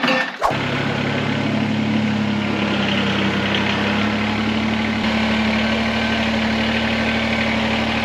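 Kubota BX2380 compact tractor's three-cylinder diesel engine idling steadily, after a brief clatter right at the start.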